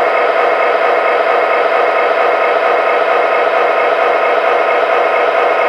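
Proto-Sound 3.0 sound system of an MTH Premier O-scale SD50 model locomotive playing a steady EMD diesel engine running sound through its small onboard speaker, with no deep bass.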